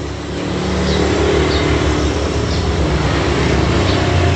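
A motor vehicle's engine running with a steady low rumble that swells about a second in.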